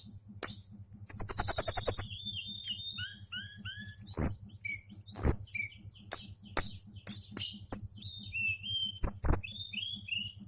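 A songbird singing a rapid, varied song of short chirps and whistled notes, with a fast trill about a second in.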